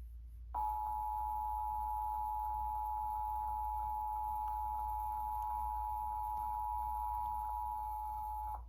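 Emergency Alert System attention signal: the steady two-tone alert (853 Hz and 960 Hz sounded together), starting about half a second in and cutting off sharply after about eight seconds, marking the start of a Required Monthly Test.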